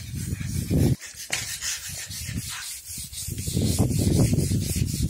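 Repeated scrubbing strokes on ceramic floor tiles during an acid wash: first a bristle brush spreading acid, then, after a short break about a second in, a coil of coconut-coir rope rubbed hard over the wet tile with a rasping sound.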